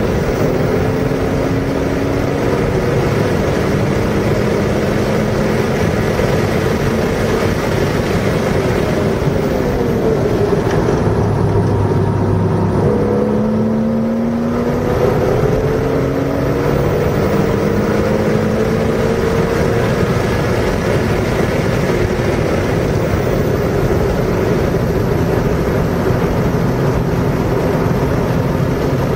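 A car engine being driven hard around a race track: revs climb, drop back at each gear change and climb again, over and over. About ten seconds in the pitch sinks for a few seconds as the car slows, then it pulls up through the gears again.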